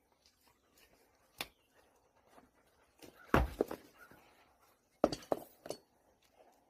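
Hoof nippers snapping through a horse's hoof wall during a trim: a single sharp click, then two quick clusters of cracking snaps, the first with a heavy knock.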